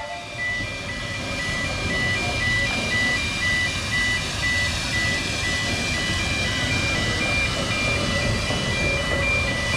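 Level-crossing warning alarm sounding, a rapid beeping that alternates between two high tones, over the low rumble of a narrow-gauge steam train crossing the road.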